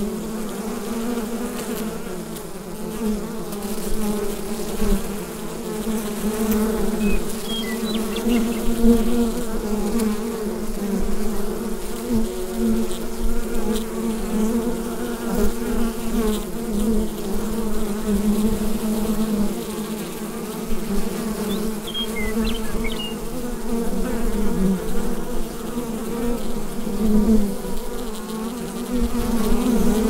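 A honeybee hive buzzing: many bees humming together in a steady, dense drone that swells and dips slightly in loudness. A few brief faint high chirps sound about 8 and 22 seconds in.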